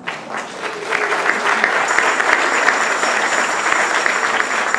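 Audience applauding: dense clapping that swells over the first second and tapers off near the end.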